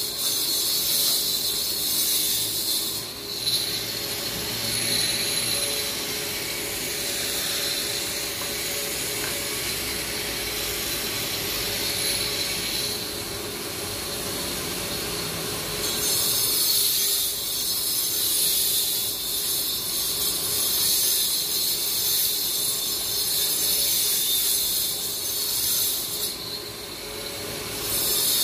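A power cutter grinding into the road surface, a steady high-pitched grinding whine whose tone shifts several times as the blade works the cut.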